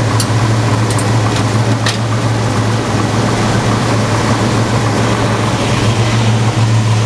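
1972 Chevelle SS 454's big-block V8 idling steadily, heard from floor level beneath the car, with a low, even rumble. A few light clicks in the first two seconds.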